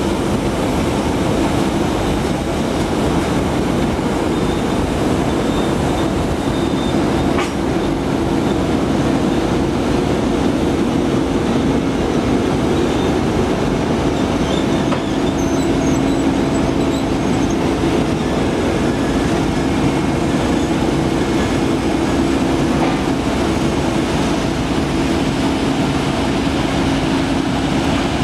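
2M62 diesel locomotive's two-stroke 14D40 diesel engines running steadily as the locomotive rolls slowly past, with the rumble and clatter of its wheels on the rails.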